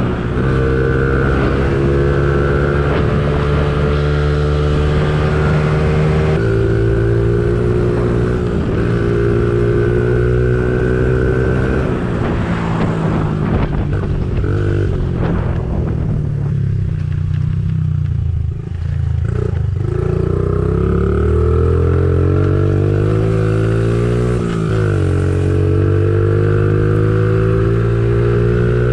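Pit bike engine running under way, the pitch holding and then stepping down at gear changes. About two-thirds through the rider rolls off and the engine drops low. It then revs back up through the gears.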